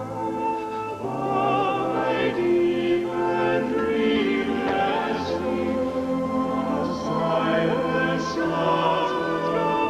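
Operatic singing with orchestral accompaniment: long held notes with vibrato.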